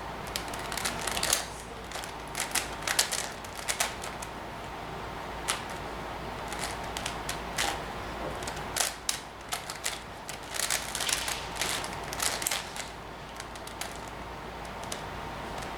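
Plastic 5x5 Rubik's cube (Rubik's Professor) being turned by hand: layers clicking and clacking in quick, irregular bursts as the centres are built.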